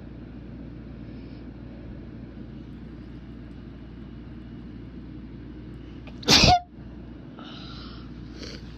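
One strong human sneeze about six seconds in: a single short, loud burst over a steady low background hum.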